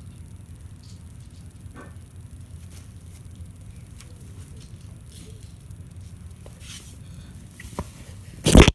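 Faint scattered ticks and taps over a steady low hum, then a short knock and, near the end, a loud brief thump.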